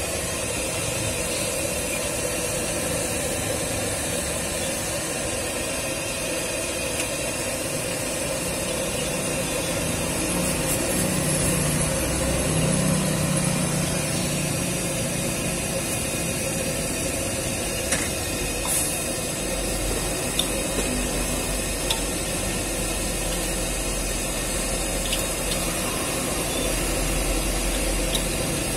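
Gas burner running steadily under a steel wok of broth heating toward the boil, with a low rumble swelling for a few seconds midway and a few sharp metallic clinks in the second half.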